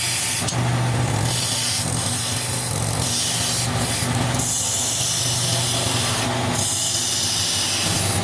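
Wood lathe running with a steady motor hum while a turning chisel cuts into the spinning wood, hissing in several separate passes that start and stop every second or two.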